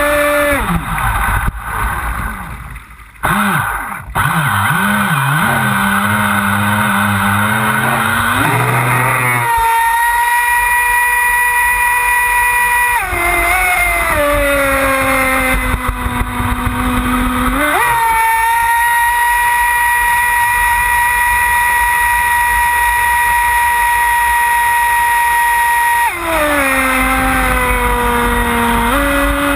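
Pro Boat Voracity RC speedboat's motor whining at speed over the hiss of rushing water and spray, with throttle changes. The pitch drops low for several seconds near the start, climbs about a third of the way in, dips and climbs again about halfway, and dips and climbs once more near the end.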